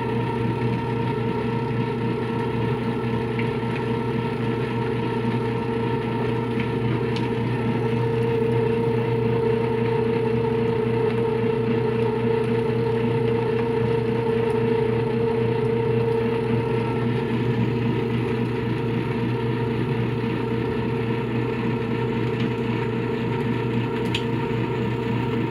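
Latina LA551 semi-automatic washing machine's electric motor running steadily with a constant mains hum, working a load of floor cloths; it gets a little louder about a third of the way in, then eases back.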